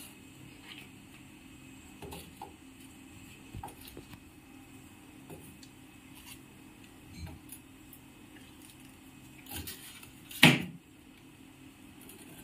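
Small knocks and clinks as ceramic tea cups are lifted off a steel tray and set into a refrigerator's freezer compartment, with one louder, sharper knock about ten seconds in. A faint low steady hum runs underneath.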